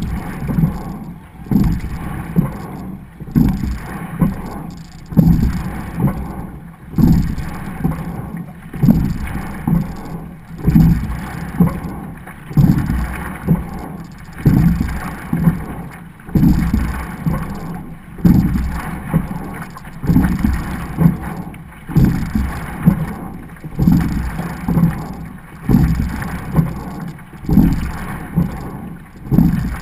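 Double sculling shell under way, heard from on board: water rushing along the hull with a low surge and knock on every stroke, about one every 1.7 seconds, and wind on the microphone.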